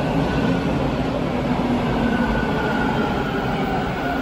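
TTC T1 subway train pulling into the platform and slowing to a stop: a steady rumble of steel wheels on the rails with a faint high motor whine over it.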